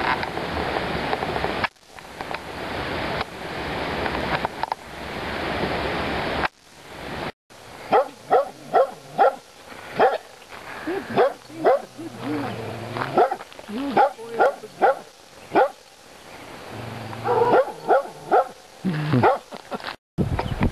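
A dog barking repeatedly in quick, sharp barks: a long run starting about a third of the way in, then a shorter run near the end. Before the barking there is a steady rushing noise.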